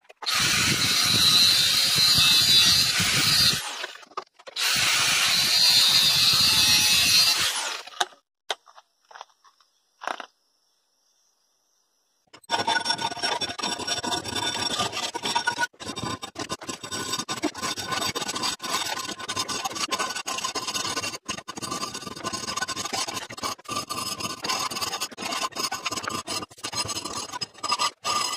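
An angle grinder's cut-off wheel cutting steel in two loud bursts over the first eight seconds, then, after a few quiet seconds, a hand file rasping in quick repeated strokes across the steel knife blade's spine, cutting the notches in its back.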